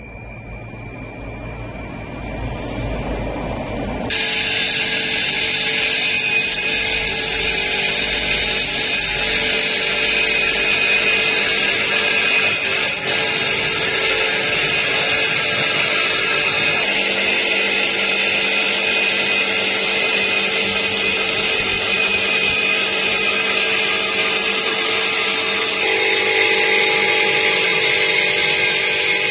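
CNC wood-turning lathe with a vertical router spindle running: a steady high-pitched whine that builds over the first few seconds, then turns abruptly louder and harsher about four seconds in as the tool cuts into the spinning wood.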